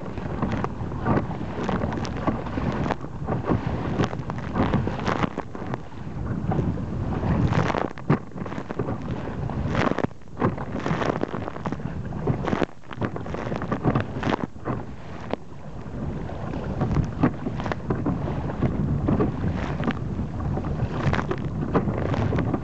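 Waves slapping and splashing against the hull of a sit-on-top fishing kayak in rough, wind-driven chop, with wind buffeting the microphone. Many sharp splashes and spray hits over a steady rush of water and wind.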